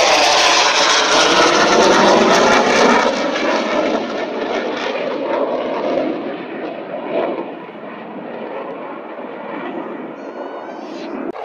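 A fighter jet flying past with loud, rushing jet engine noise that weakens from about four seconds in as the aircraft draws away.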